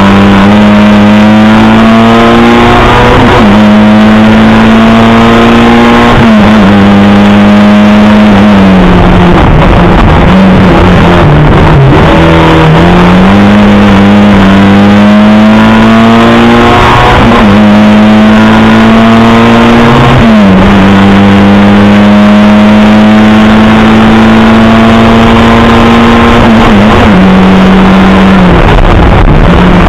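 Lada 2107 rally car's four-cylinder engine heard very loud from inside the cabin, driven hard through the gears: the pitch climbs under full throttle and drops sharply at each upshift, several times over. Midway it eases off and the note falls and wavers as the car slows, then climbs again.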